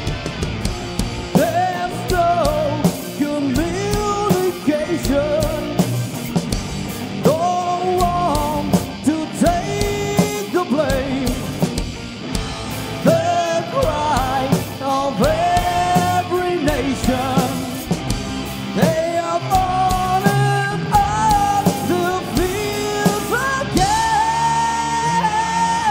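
Rock band playing live: drums with cymbals, bass and electric guitars under a gliding lead melody, which settles into a long held note near the end.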